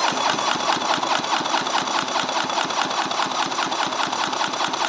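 Polaris 1200 three-cylinder two-stroke engine being cranked over by its electric starter with the spark plugs out, a fast, even chugging of compression strokes over the starter's whine. This is a compression test of the center cylinder, which comes up to about 150 PSI.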